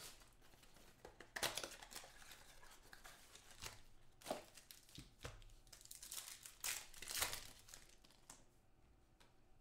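Foil trading-card pack wrappers crinkling and tearing in the hands: a run of short, faint rustles.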